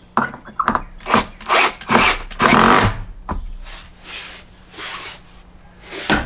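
A hand tool worked against wood in short rasping strokes, about two a second. The strokes are loudest over the first three seconds and lighter after that.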